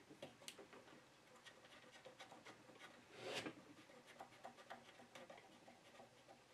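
Faint handling sounds: small clicks and rubbing as fingers screw down the plastic binding-post caps on bare speaker wire at the back of a Samson SX1200 power amplifier, with one brief louder rustle about three seconds in.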